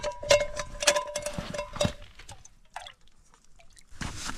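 Metal camp cooking pot clinking as it is handled: several sharp metallic clinks with a brief ring in the first two seconds, then a soft rustle near the end.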